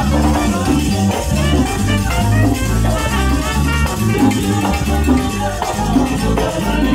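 Live salsa band playing, with a steady bass line under timbales, a metal güiro scraping the rhythm and trumpets.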